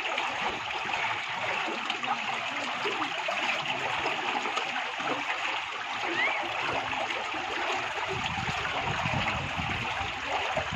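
Steady rush and trickle of water in a concrete channel, with light splashing from a person wading chest-deep through it; a deeper sloshing joins in near the end.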